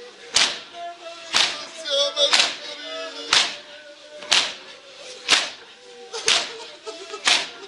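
Mourners doing matam, a crowd beating their chests with open hands in unison: sharp slaps about once a second, with chanted noha voices between the strikes.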